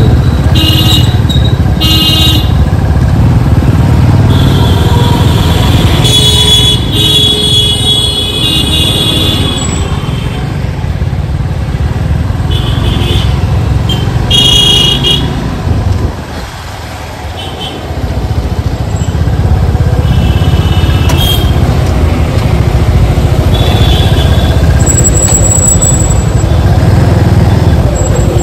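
Road traffic with a steady rumble of engines and wind, and vehicle horns honking several times in short blasts. The rumble drops briefly about two-thirds of the way through.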